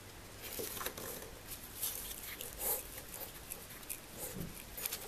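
Handling noise as a small steel part on its mandrel is fiddled into a plywood holding board: irregular rustling and scraping with a few light clicks.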